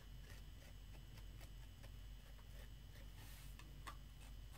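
Faint, scattered scratching clicks of a tool scoring and roughening the edge of a soft clay slab, with one slightly sharper click near the end.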